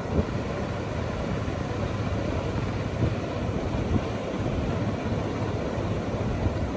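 Diesel farm tractor engine running steadily, with the wash of surf behind it and a few brief thumps of wind on the microphone.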